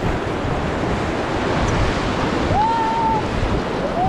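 Whitewater of a Ganges rapid rushing loudly and steadily around a raft. Two short rising shouts from the rafters are heard over it, about two and a half and four seconds in.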